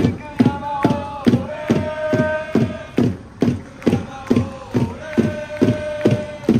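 Background music with a steady drumbeat, about two and a half beats a second, under a held melody.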